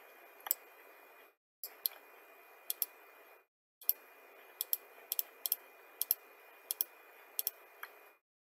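Computer mouse buttons clicking about a dozen times, several in quick pairs like double-clicks, over a faint steady hiss that cuts out briefly a few times.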